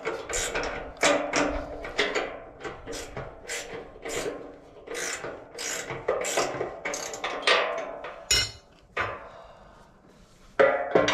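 Steel frame beam of a bandsaw mill knocking and scraping against its mounting bracket as it is rocked by hand to bring the bolt holes into line. A fast, irregular run of metallic knocks, one louder knock about eight seconds in, a lull, then two sharp knocks near the end.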